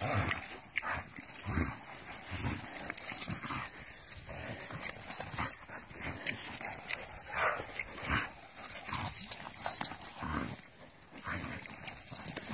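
Three hunting dogs growling and scuffling as they tug at a fox between them, their paws shuffling on leaf-strewn ground in uneven bursts.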